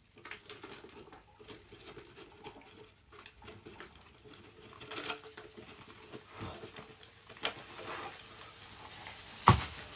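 Baking soda poured from a cardboard box into a plastic bottle: faint pattering and crackling of the powder against the plastic, with one sharper tap near the end.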